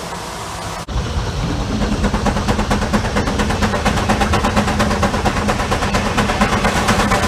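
1924 Frick sawmill running under engine power as a log is fed slowly into the saw blade. A rapid, even pulsing sets in about a second in, and a steady hum builds under it shortly after, as the engine takes the load of the cut.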